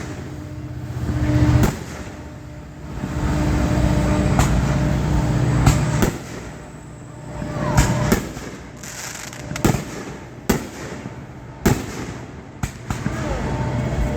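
Aerial fireworks bursting: a string of sharp bangs that come thicker after about six seconds. Under the first half runs a steady low engine rumble from a vehicle that then fades.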